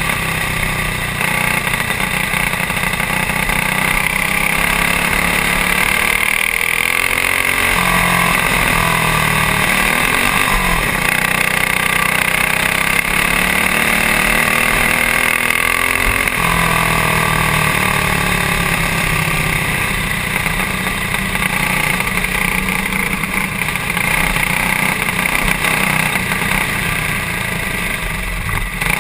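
Onboard sound of a stock clone go-kart's single-cylinder four-stroke engine (a Honda GX200 copy) running hard on a dirt oval. Its pitch falls and climbs again about six to eight seconds in and again around sixteen seconds in, as the kart lifts for the turns and pulls onto the straights.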